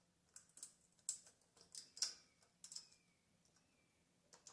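Faint plastic clicks and scrapes of a wire connector being pushed and wiggled onto the terminals of a Kohler ignition module on a Kohler Command CH16 engine. There are a handful of sharp ticks over the first three seconds and another at the end, while the connector is still not fully seated.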